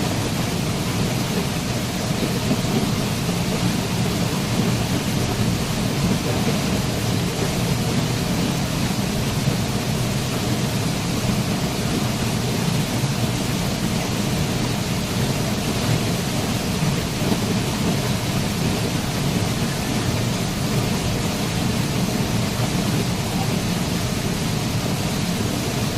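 Waterfall rushing, a steady deep roar of falling water with no change or break.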